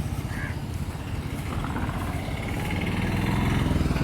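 Motorcycle engine running with a fast, even pulse, getting louder about three seconds in.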